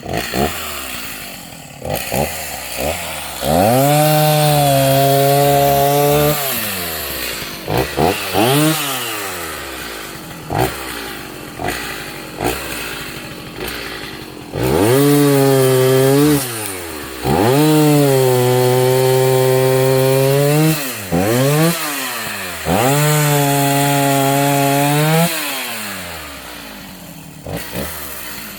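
Chainsaw revved to full throttle four times, cutting into apple-tree wood: each cut lasts a couple of seconds, the pitch sags a little under load, then drops back to a lower speed between cuts.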